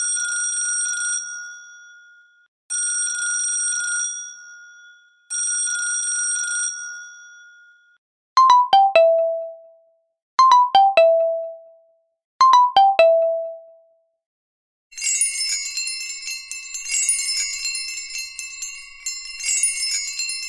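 A series of bell sound effects. First a bell rings three times, each ring dying away. Then an electronic doorbell plays a falling three-note chime three times. About three-quarters of the way in, a dense jingling of many small bells starts and keeps going.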